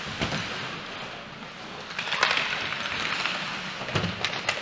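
Ice hockey game noise in a rink: a steady hiss of skates on the ice with sharp clacks and knocks of sticks, puck and boards, one near the start, one about two seconds in and three close together near the end.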